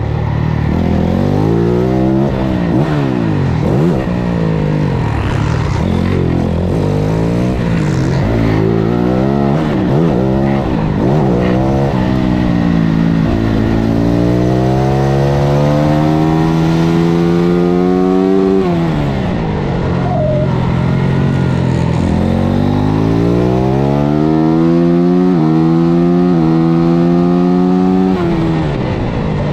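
450cc single-cylinder four-stroke supermoto race bike engine heard onboard at race pace. It revs up and down quickly through a run of tight corners. It then pulls through the gears with quick upshifts, drops sharply about two-thirds through, and pulls up through the gears again before shutting off near the end.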